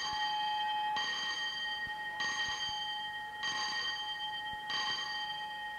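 Electric school bell ringing steadily, a bell-like tone whose upper overtones come and go about every second and a quarter.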